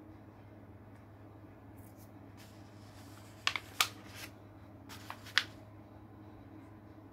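A page of a hardcover picture book being turned by hand: paper rustling with a few crisp snaps and flaps of the page, in two clusters about midway through.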